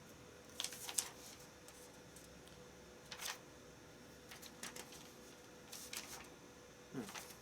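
Paper instruction manual being handled, a few short scattered rustles of its pages, over a faint steady hum.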